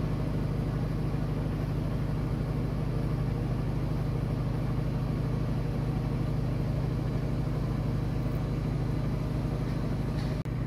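Narrowboat's diesel engine running steadily at cruising speed, a low even hum with a regular low throb. The sound drops out for an instant near the end.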